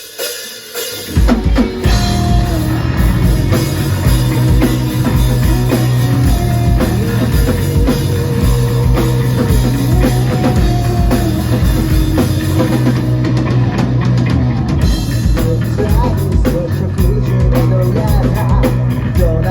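Live rock band playing an instrumental intro: drum kit with bass drum and snare, and bass, coming in together at full volume about a second in.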